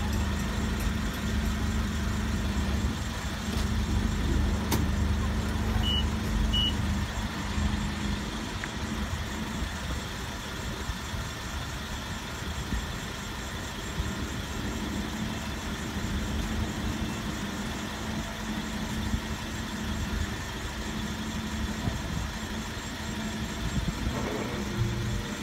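Nissan forklift's engine running steadily at low speed. Two short high beeps sound a little over half a second apart about six seconds in, and there is a single click just before them.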